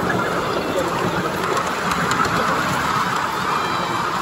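Live-steam miniature Pacific locomotive hissing steadily with escaping steam.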